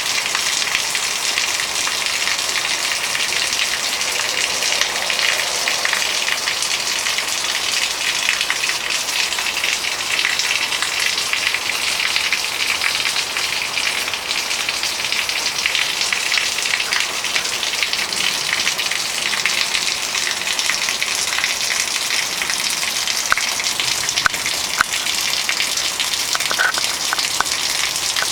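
Heavy rain falling steadily onto a flooded yard, an even hiss of drops on standing water, with a few sharper taps near the end.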